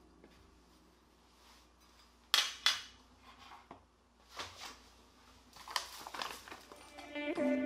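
Metal kitchen tongs clicking and clinking against a stainless steel tray while cooked pork ribs are handled, with two sharp clacks about two and a half seconds in and lighter clinks later.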